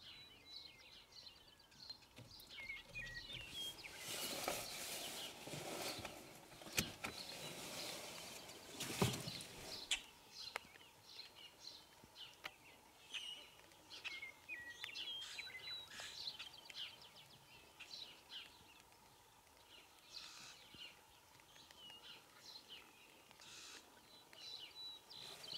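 Faint outdoor background of small songbirds chirping and singing in short phrases. Between about four and ten seconds in there is a stretch of rustling noise with two sharp knocks.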